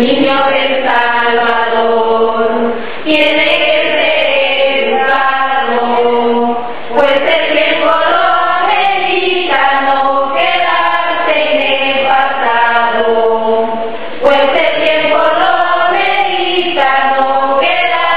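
Voices singing in long held notes, phrase after phrase, with brief breaks between phrases every three to four seconds.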